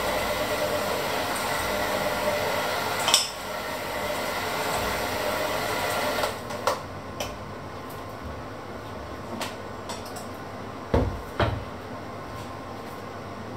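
Electric hand mixer running with its beaters in a stainless steel bowl, then switched off about six seconds in. A few short knocks follow, with two louder thuds near the end.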